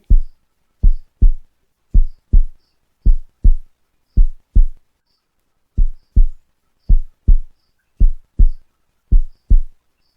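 Heartbeat sound effect: deep thumps in lub-dub pairs, about one pair a second, with a short pause near the middle.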